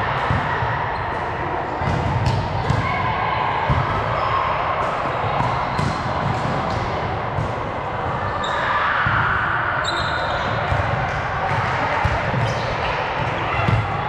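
Volleyball play in a gym hall: a ball being struck and bouncing on the court in repeated sharp knocks, with players' voices echoing around it.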